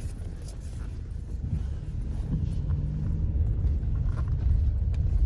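Car driving slowly, heard from inside the cabin: a steady low engine and road rumble that grows a little louder toward the end.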